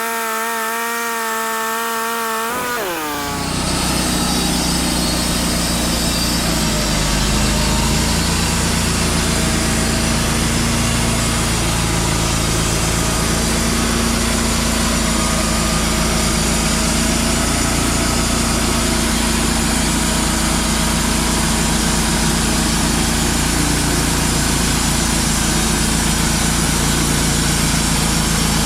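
Wood-Mizer portable sawmill's band blade working through a black walnut log. A high whine drops in pitch about three seconds in, and then a louder, steady cutting noise runs over the sawmill engine's hum. Old blades are on the mill because of the nails in this log.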